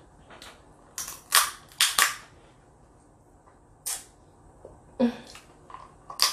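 Crab leg shells being cracked and snapped apart by hand: a quick cluster of sharp cracks about a second in, then single cracks near four, five and six seconds. The shell is hard to break by hand.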